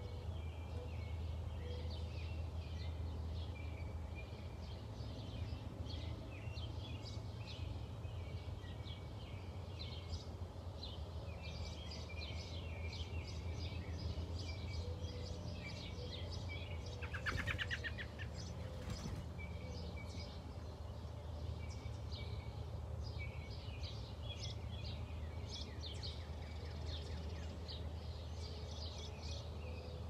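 Birds chirping in quick, high, short notes throughout, over a steady low hum. About halfway through comes a brief rapid rattle.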